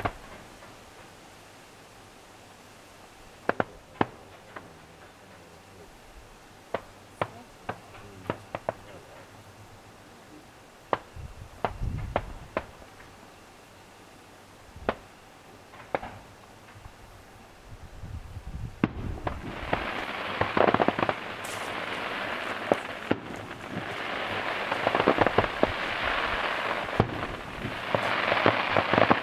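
Fireworks display: scattered single sharp bangs of bursting shells, some with a low rumble. After about twenty seconds this gives way to a dense, continuous crackling that swells in waves.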